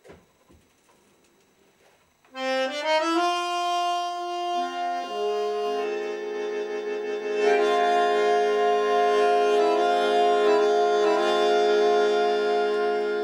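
Bandoneon playing slow, held chords that come in about two seconds in, building up note by note into a full sustained chord. In the second half the higher notes are re-struck several times over the held lower notes.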